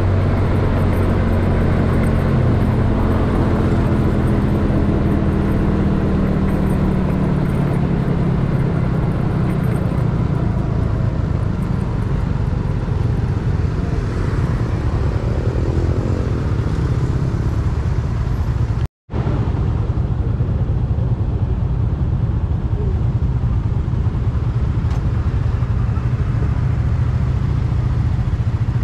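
Yamaha Mio scooter ridden at road speed: a steady low engine rumble with road noise. The sound cuts out for a split second about two-thirds of the way through.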